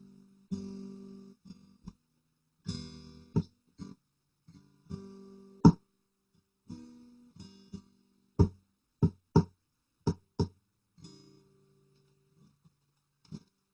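Acoustic guitar strummed in separate chords that ring and fade, with short pauses between them, then a quick run of short, sharp muted strokes before one last chord rings out.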